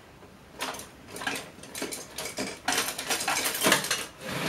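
Small metal hand tools clinking and rattling as they are handled and a screwdriver is picked up: a quiet start, then irregular clicks and clatter, busiest near the end.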